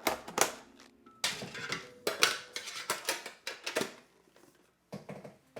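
Clinks, clatter and scrapes of a metal collector's tin and its contents being handled, in a quick run of sharp hits for the first few seconds, then a few lighter clicks near the end.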